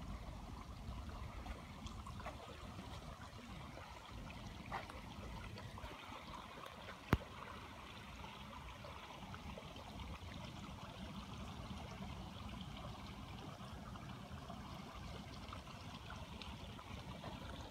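Creek water running steadily, with a single sharp click about seven seconds in.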